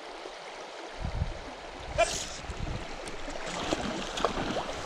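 Shallow stream rippling over a stony bed in a steady hiss. From about a second in there are low rumbling bumps, a short sharp knock about two seconds in, and scattered faint clicks.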